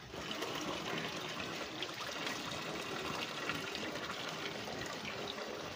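Tap water pouring steadily into a steel bowl of rice, splashing into the cloudy rinse water as the rice is washed and then left to soak.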